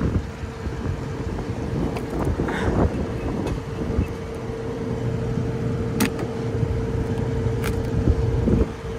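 Steady low rumble with a constant mid-pitched hum, and a couple of sharp light clicks about six and eight seconds in.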